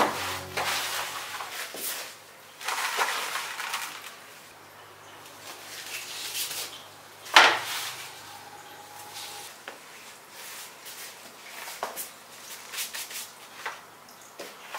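Gloved hands working loose potting soil in a plastic planter box: repeated grainy rustling and scraping as the soil is spread, pressed and scooped, with one sharp knock about seven seconds in.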